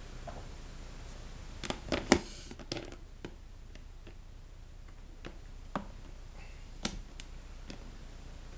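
Handling noise as things are moved about by hand: a cluster of knocks and clicks about two seconds in, then scattered single light clicks, over a low steady hum.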